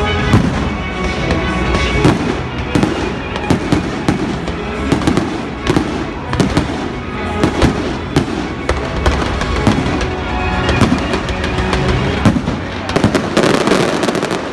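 Aerial firework shells bursting in quick succession, several bangs a second, with a dense run of crackling near the end. Music plays underneath.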